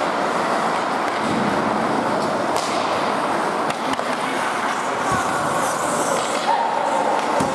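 Ice hockey play: skate blades scraping and carving the ice, with a few sharp clacks of sticks on the puck and a voice calling out briefly near the end.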